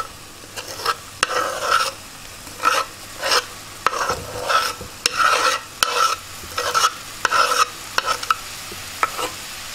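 Chopped onion being scraped off a wooden cutting board into a hot frying pan, a dozen or so short scraping strokes over the steady sizzle of lamb pieces frying in melted lamb tail fat.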